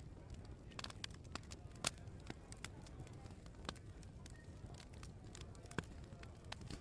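Open wood fire crackling in a fireplace: irregular sharp pops and snaps over a low steady rumble, with the loudest pops about two seconds in and again near the end.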